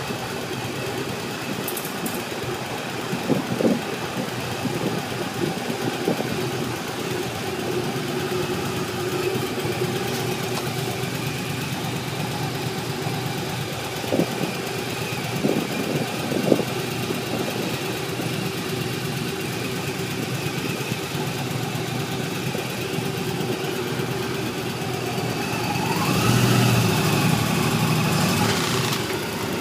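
Motorcycle engine idling steadily, with a few short knocks. Near the end it gets louder and rises in pitch as it is revved.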